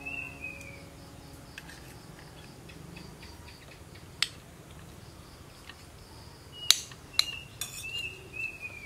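Night insects, crickets, chirping steadily, with a few sharp clicks, the loudest a little past halfway and twice more shortly after. Short falling chirps come near the start and again near the end.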